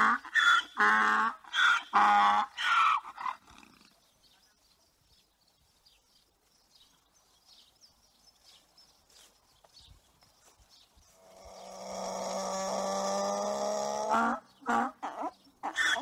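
Donkey braying: a run of rhythmic hee-haws, about two a second, that stops about three and a half seconds in. After a lull comes a long drawn-out call, then another quick run of brays near the end.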